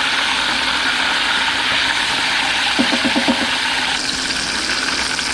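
Flour-dredged bluegill deep-frying in hot oil at about 360°F: a steady, even sizzle. A brief run of short pitched pulses sounds about three seconds in.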